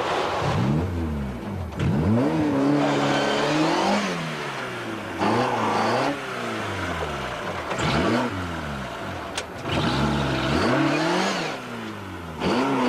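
Ford Escort Mk2 rally car driven flat out, its engine revving up and dropping back sharply at each gear change, again and again. The engine note dips and returns several times.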